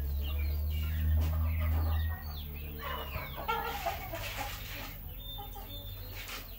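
Chickens clucking, with a low hum that cuts off about two seconds in.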